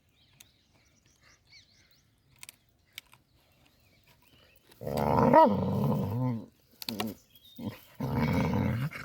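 Cane corso puppy growling in two long bouts, the first starting about five seconds in with a brief rise in pitch, the second near the end; a few faint clicks come before them.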